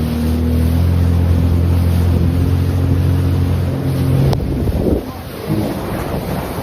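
Jet ski engine running at a steady towing speed, with water and wind rushing past. About five seconds in its note breaks up and drops as it eases off.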